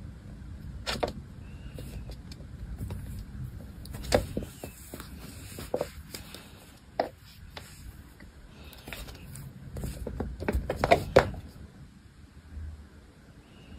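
Scattered light knocks and scrabbling of a small kitten's paws and claws on a wooden floor as it pounces on a hand, loudest in a quick flurry near the end, over a low steady background rumble.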